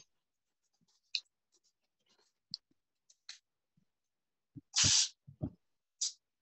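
Art materials being handled on a table: scattered light taps and scratches, then a short, louder rustling hiss with a few soft thumps about five seconds in.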